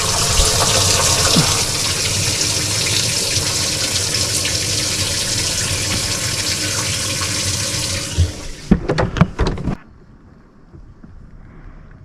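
Bass boat livewell aerator pump running, spraying water into the livewell with a steady splashing rush, just switched on and working. A few knocks come near the end, then the water sound stops suddenly.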